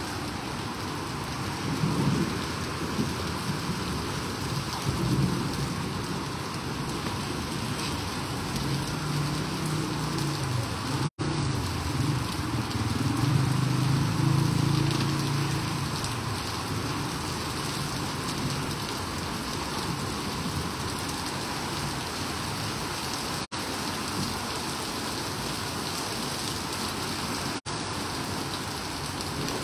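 Heavy rain pouring onto a flooded paved street, a steady hiss and patter. A low rumble swells and fades in the middle, the loudest part of the sound.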